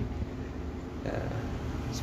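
Diesel engine of an SSP ballast regulator, a rail track-maintenance machine, running steadily with a low hum.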